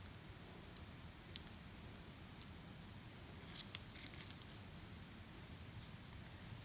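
Faint, scattered clicks and light rustles of gloved hands handling a plastic drug ampoule, a syringe and its paper wrapper: a couple of single ticks, then a short cluster of clicks a little past the middle.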